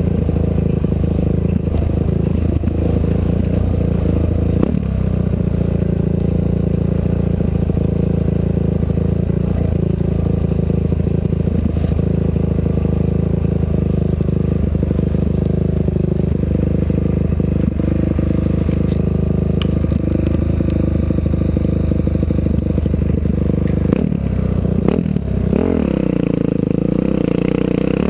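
Off-road race vehicle's engine running steadily under load, heard from on board, with rattles and occasional knocks from the rough desert terrain. The engine note changes and its revs swing about three-quarters of the way through.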